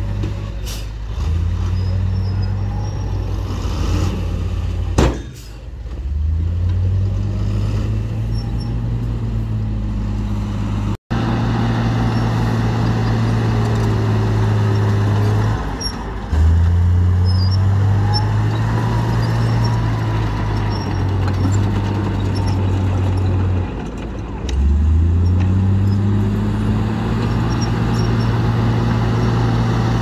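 Heavy diesel engines running and revving: first a FUSO dump truck's engine as it tips its bed, with one sharp burst about five seconds in, then a crawler bulldozer's engine pushing soil, its pitch climbing and dropping back every several seconds.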